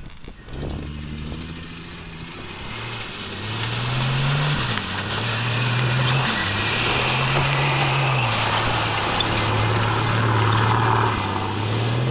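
1985 Ford Bronco's engine revving up and down in repeated surges as its wheels spin through mud, over the hiss of wheelspin and spray.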